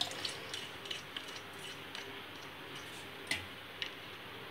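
Faint scattered ticks and light clicks of a small plastic bowl and a steel mixer-grinder jar being handled, with one sharper click about three seconds in.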